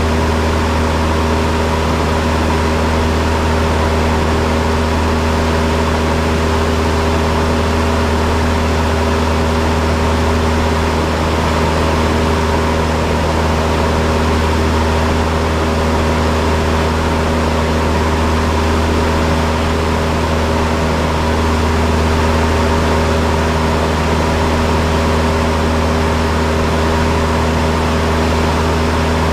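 Cessna 172's piston engine and propeller running steadily at an unchanging speed, heard inside the cockpit as a loud drone.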